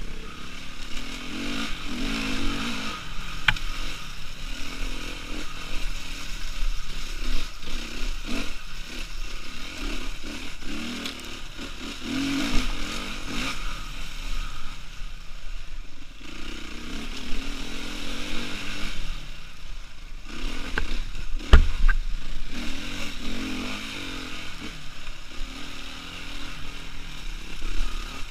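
Suzuki RM-Z450 four-stroke single-cylinder dirt bike engine with an Akrapovič exhaust, revving up and easing off again and again as it climbs a rough, rocky track. A single sharp knock comes about three quarters of the way through.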